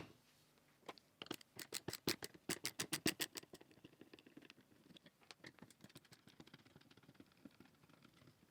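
Parts of a homemade wooden bench clamp being handled and shifted: a quick run of light clicks and taps for a couple of seconds, then faint scraping and rubbing.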